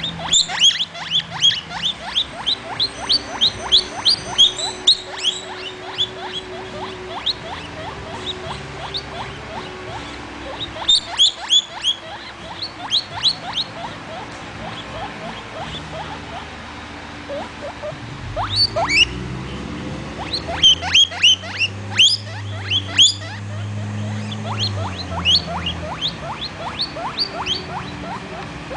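Baby guinea pig wheeking: rapid runs of short, high, rising squeals, several a second, coming in bouts with quieter stretches between.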